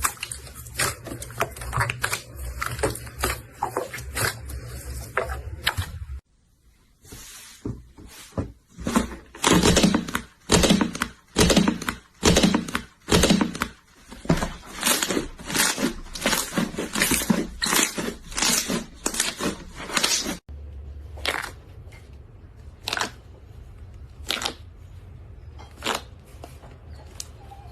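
Slime being squeezed and pressed by hand, making rapid crackling clicks and pops, several a second. The sound comes in three clips with abrupt cuts about six and twenty seconds in, and the middle clip is the loudest.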